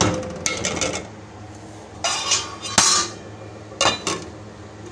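Metal spoon and pot lid clinking and clattering against a cooking pot as the pot of potato-and-mince curry is stirred and covered. Several separate strikes, the loudest a little under three seconds in.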